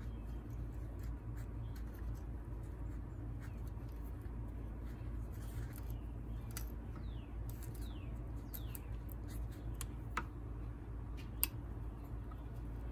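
Screwdriver turning the carburetor mounting screws on a cut-off saw: faint scattered clicks and small metal scrapes over a steady low hum, with a few short high chirps that fall in pitch.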